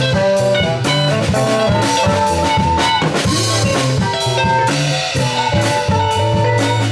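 Live band playing a jazzy groove: drum kit keeping a steady beat under bass guitar, electric guitar and saxophone, with a melody line holding some long notes.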